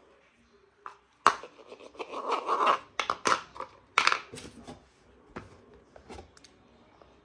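Plastic parts and packaging being handled: a few sharp clicks and knocks with a scratchy rustle between them, dying down after about five seconds.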